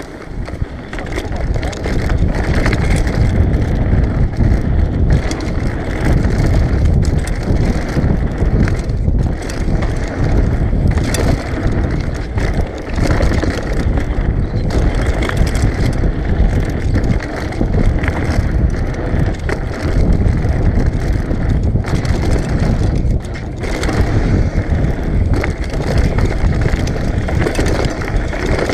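Mountain bike riding fast down a gravel and stone trail: tyres crunching over loose stones and the bike rattling and knocking over bumps, with wind rushing over the camera microphone.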